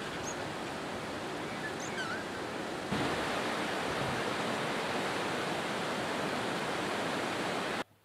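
River rapids rushing: a steady, full sound of fast, churning water that gets a little louder about three seconds in and cuts off abruptly just before the end.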